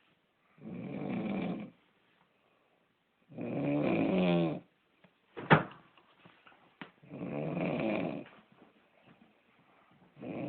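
Snoring: a drawn-out rasping snore about every three seconds, three in all, with a fourth beginning at the very end. Between the second and third snore comes one sharp, short click or snort, the loudest sound, followed by a fainter click.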